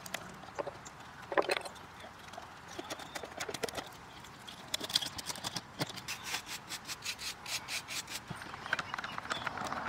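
Hand carving chisel scraping and picking old cane and debris out of the groove round a wooden chair-seat frame in short, quick strokes, about three or four a second at the busiest. A bristle brush sweeps the loose wood shavings near the end.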